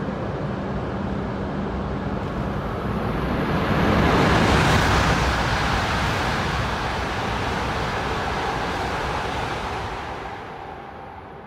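Shinkansen bullet train, an E5 coupled with an E6, passing through a station at high speed. The rushing noise swells to a peak about four to five seconds in, then fades away near the end.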